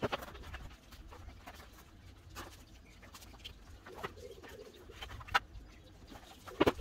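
Cement boards and an aluminium straight edge being handled on a metal work platform: scattered sharp knocks and taps, the loudest about five seconds in and just before the end.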